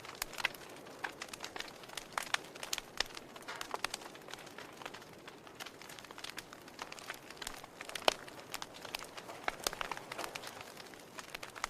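Wood fire crackling in a fireplace: irregular sharp snaps and pops over a soft hiss, the loudest pop about eight seconds in.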